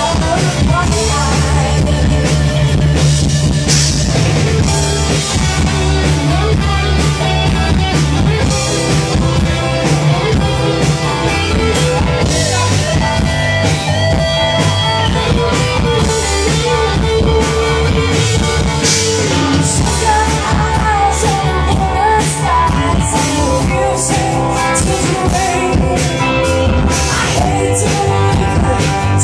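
Live rock band playing: electric guitars, bass and a drum kit with frequent cymbal hits, with a singing voice in the mix.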